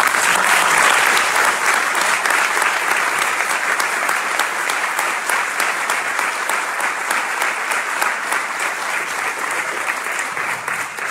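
Audience applauding, a dense patter of many hands that starts abruptly and eases slightly toward the end.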